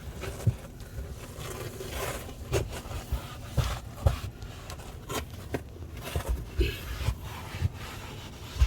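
Car floor mat being laid back into the footwell and pushed into place: irregular scraping and rustling with several soft knocks.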